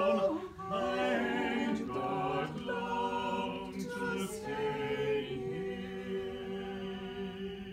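Small choir singing a slow spiritual a cappella in harmony, holding long chords that shift every second or two and grow quieter toward the end.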